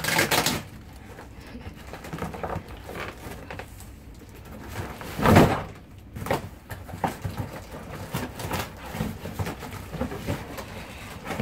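Handling noise of boxes and things being moved about: scattered rustles, scrapes and light knocks, with one short louder burst about five seconds in.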